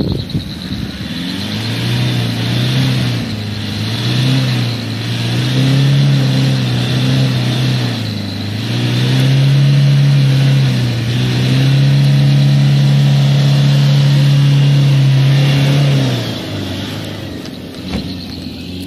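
Toyota Hilux pickup engine revving hard as the truck drives through deep mud. The revs rise and fall several times, are held high for several seconds, then ease off near the end.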